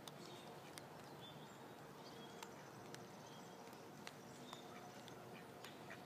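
Near silence: faint outdoor ambience with scattered soft ticks and a few faint, short, high chirps.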